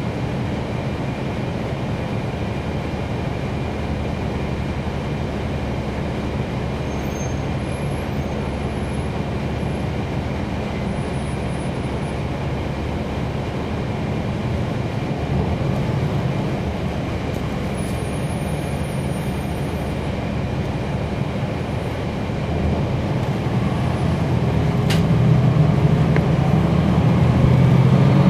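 Cabin sound of a NABI 40-SFW transit bus under way, its Cummins ISL9 inline-six diesel running steadily over road noise. The engine grows louder over the last several seconds as the bus accelerates, with a rising whine at the very end and a single click shortly before.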